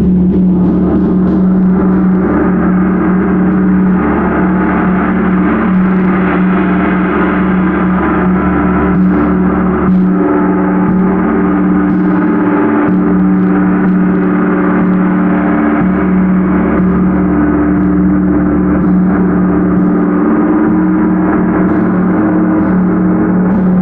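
Large gong played continuously, a dense, steady wash of tone with a low hum underneath and light strikes now and then keeping it sounding.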